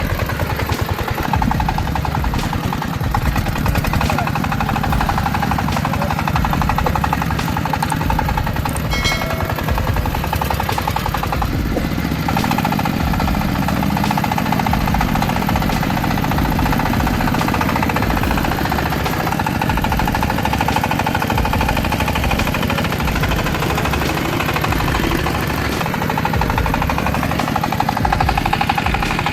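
A heavy vehicle's engine running steadily, with an even rumble throughout.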